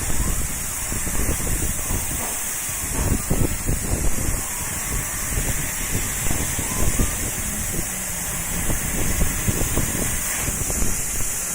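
CNC laser machine running: a steady hiss with an uneven low rumble underneath.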